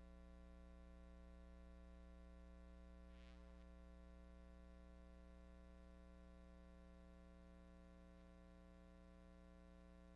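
Near silence: a faint, steady, unchanging hum.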